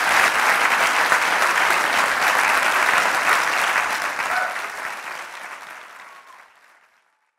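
Audience applause, steady and full, then dying away over the last few seconds.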